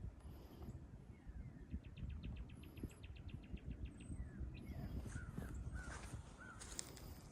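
Birds chirping in short gliding notes. Earlier comes a quick run of even clicks, about eight a second for two seconds, over a low rumble of wind on the microphone.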